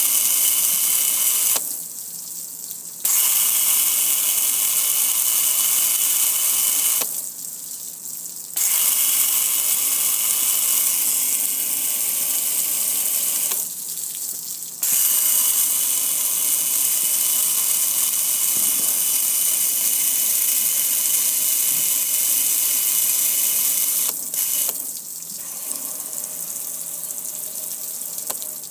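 Water spray hitting a gas grill's metal hood and control panel, a loud steady hiss of spray and splashing. It cuts out for a second or so three times and drops away in the last few seconds.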